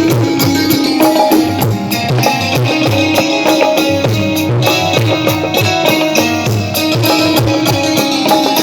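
Instrumental interlude of a ghazal: tabla keeping a steady beat under sustained melodic instruments, with no singing.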